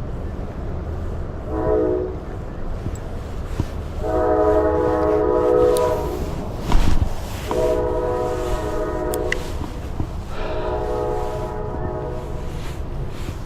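Train horn sounding in repeated blasts, several tones at once: a short blast, then three long blasts of about two seconds each, over a steady low rumble.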